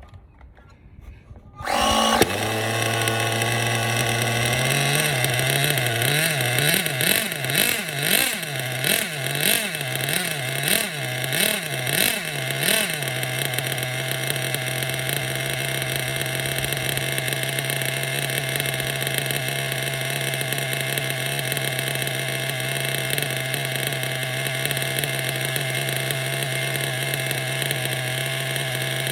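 Ishima Rave nitro buggy's glow engine catches about two seconds in, is revved up and down about once a second for several seconds, then runs steadily at one pitch. It is tuned on the rich side and spits oil as it runs.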